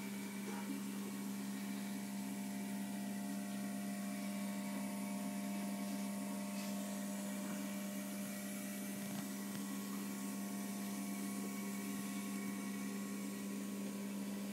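Steady electric motor hum, one strong low tone with fainter higher tones above it and a light hiss, unchanging throughout.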